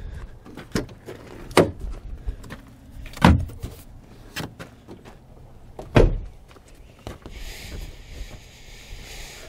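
A string of sharp knocks and clunks at a truck as a sheet of acrylic is fetched from it, four of them louder, with a brief rustling hiss near the end.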